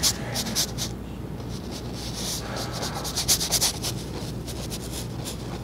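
Paintbrush bristles scrubbing oil paint onto a stretched canvas in quick, short scratchy strokes. The strokes come in bursts near the start, about two seconds in and just after three seconds, over a steady low hum.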